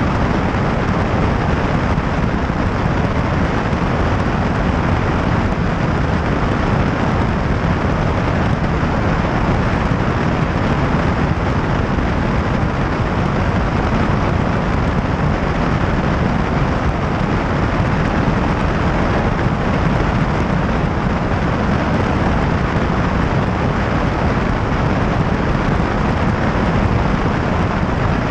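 Steady, loud rushing of airflow and engine noise from a high-wing light aircraft in level flight, recorded by a camera mounted on the outside of the plane so the wind hits the microphone. The noise is heaviest in the low range and does not change.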